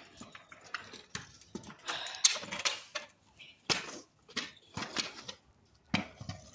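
A Razor kick scooter and feet on a concrete sidewalk make a string of irregular knocks and scuffs, a louder knock roughly every second.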